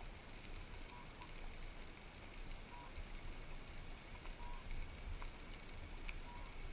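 Underwater ambience heard through the camera's housing: a steady hiss with scattered faint clicks and crackles over a low rumble, and a few short faint beeps.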